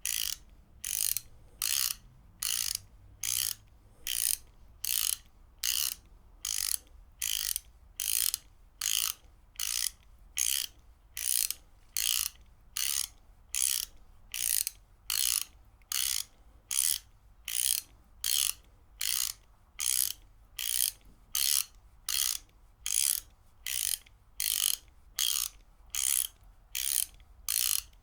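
Ratchet wrench ratcheting in short, evenly spaced bursts of rapid pawl clicks, about three bursts every two seconds, with brief quiet gaps between strokes.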